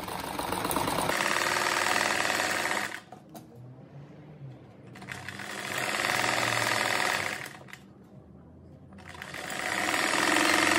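Electric sewing machine stitching a seam through cotton fabric, run in three bursts of a few seconds each with short pauses between as the fabric is turned and straightened.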